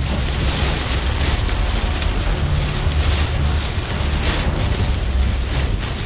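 Heavy rain mixed with pea-sized hail pelting the roof and windshield of a moving car, heard from inside the cabin as a dense, steady patter over a low rumble of road and wind.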